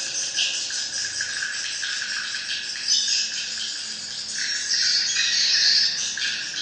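Swiftlets twittering: a dense, continuous chatter of high chirps and trills, a little louder near the end.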